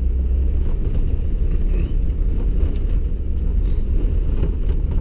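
Vehicle driving over rough, packed and refrozen snow and ice: a steady low rumble of tyres and engine.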